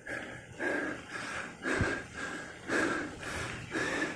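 A cyclist's heavy breathing from the effort of a hill climb, with hard breaths in and out about once a second.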